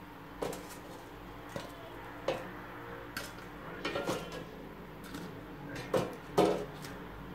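Kitchen tongs clacking and knocking against an air fryer basket as potato wedges are lifted out: scattered sharp clicks, a quick cluster about four seconds in and the two loudest knocks about six seconds in.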